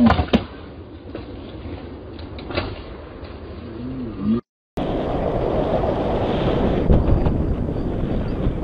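A few knocks as a skateboarder falls onto the pavement and his board rolls away. After a brief break comes heavy wind noise buffeting the microphone of a paraglider in flight; this is the loudest part.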